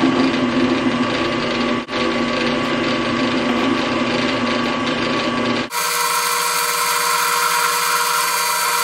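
WEN 4225 floor drill press running with a center drill cutting into solid steel: a steady machine whine with several steady tones. About two-thirds through, the sound changes abruptly, its low part dropping away and the higher tones standing out.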